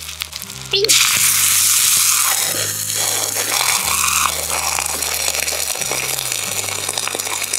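Egg frying in a small iron skillet on a camp stove; about a second in the sizzle suddenly jumps to a loud hiss, then slowly eases. Background music with a steady bass line plays throughout.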